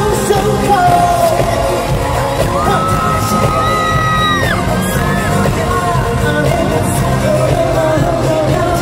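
Live pop music played loudly through a concert sound system, with a man singing into a handheld microphone over the backing track.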